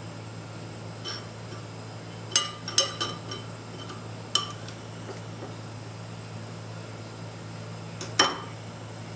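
Ceramic bowls and a utensil clinking against each other in a scattered run of sharp, ringing clinks: a faint one about a second in, a cluster a couple of seconds in, another near the middle, and the loudest pair near the end.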